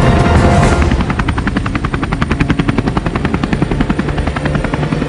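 Rescue helicopter overhead, its rotor making a fast, even chop. Background music with held tones fades out about a second in.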